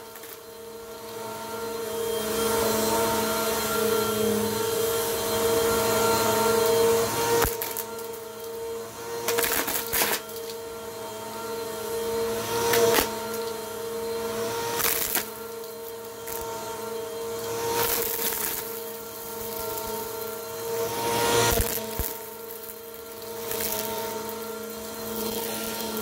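Bissell PowerForce Compact upright vacuum cleaner running on carpet: a steady motor whine that swells and fades as it is pushed back and forth, with sharp crunches and clatters as it sucks up buttons and bits of debris.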